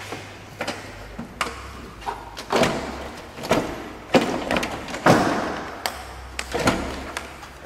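Car battery being set into its tray in a pickup's engine bay and worked into place: a series of about eight knocks and scrapes as the battery case bumps and slides against the tray and surrounding parts.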